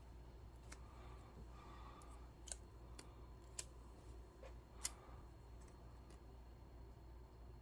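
Quiet handling of small paper and plastic wallet dividers, with about half a dozen light, sharp clicks scattered through it.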